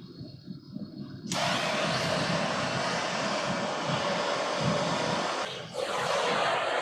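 Burner flame running with a loud, steady rushing noise that starts abruptly about a second in over a low rumble, drops out briefly past the five-second mark and comes straight back.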